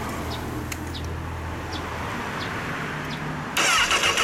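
A low steady hum, then about three and a half seconds in the starter of a 2008 Honda CBR1000RR Fireblade's inline-four engine begins cranking, sudden and much louder.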